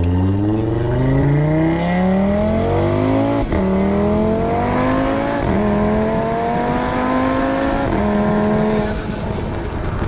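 Audi RS3's turbocharged 2.5-litre five-cylinder accelerating hard through the gears, heard through its Integrated Engineering intake and exhaust: the revs climb, then drop at quick upshifts at about three and a half, five and a half and eight seconds in, and ease off near the end. A high turbo whistle rises over the engine from about four seconds in.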